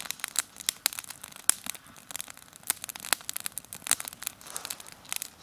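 Wood campfire crackling: irregular sharp pops and snaps, several a second.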